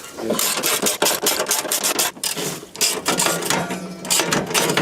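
Ratchet wrench clicking rapidly while undoing bolts in a car's engine bay, with a steady low hum joining after about two and a half seconds.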